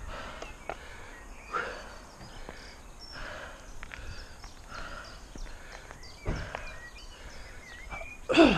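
A cyclist breathing hard in rhythmic gasps, about one every second and a half, while pedalling uphill, with a louder falling gasp near the end. Birds chirp faintly in the background.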